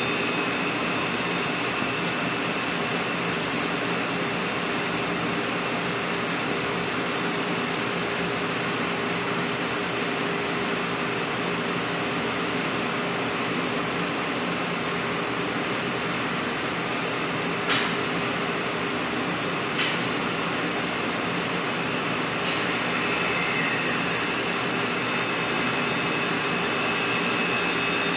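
A steady mechanical rush and hum with a faint high whine over it. Two sharp clicks come about two seconds apart, roughly two-thirds of the way through.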